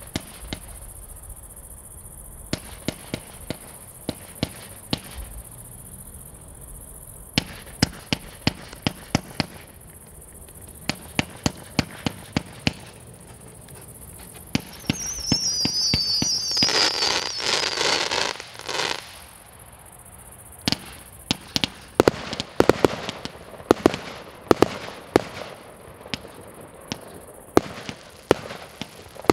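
Xplode XP4600 'Snowstorm' 139-shot, 25 mm compound firework battery firing: a run of sharp launch reports, at times several a second. About halfway through comes a warbling whistle and a burst of dense crackling, and the shots come faster in the last third.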